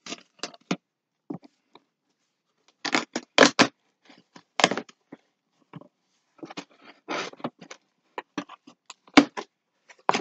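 Packing tape being peeled off a cardboard shipping box in a series of short ripping strokes, with the cardboard scraped and rustled between them.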